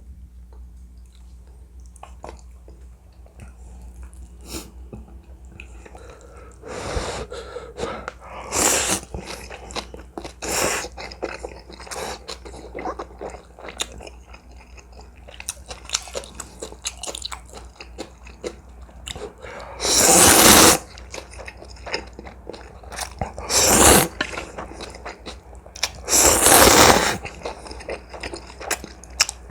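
Close-miked eating of instant ramen and kimchi: wet chewing with crisp crunches of cabbage kimchi. Several loud bursts of under a second break in, the longest about two-thirds through, as noodles are slurped.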